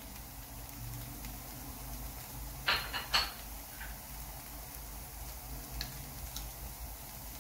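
Two quick knocks of a utensil against a nonstick frying pan about three seconds in, with a couple of fainter ticks later, over a faint steady low hum.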